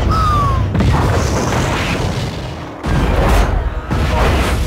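Film explosion effects of a mine blowing up: a heavy, continuous low rumble of blast and fire, with a short falling squeal near the start. After a brief lull, a second explosion bursts in suddenly about three seconds in.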